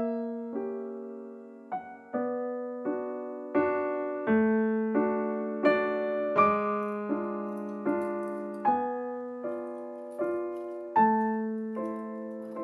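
Background piano music: a slow, gentle line of notes and chords, struck at an even pace, each ringing and fading before the next.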